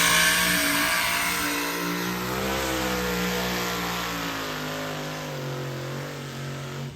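Diesel pickup truck engine running hard under load while pulling the sled. Its pitch rises and falls a few times, steps down over the last couple of seconds, and the sound grows gradually quieter before cutting off suddenly at the end.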